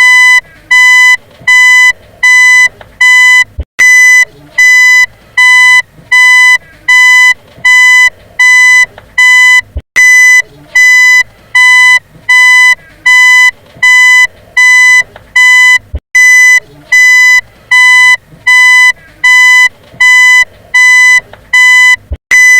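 Car reversing beeper sounding a steady train of identical, evenly spaced beeps, a bit over one a second, each about half a second long, at a single high pitch.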